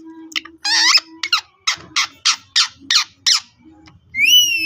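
Pet parrots calling: one harsh squawk, then a run of about six short harsh squawks at roughly three a second, then a clear whistle that rises and falls near the end.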